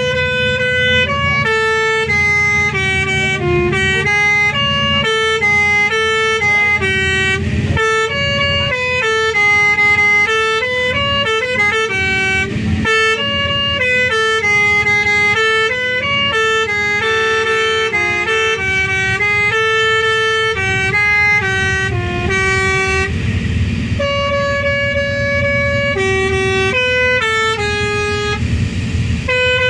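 Bus telolet horn, a multi-tone air horn, playing a long tune that steps from note to note, some notes held and some quick, without a break. A steady low engine rumble runs underneath.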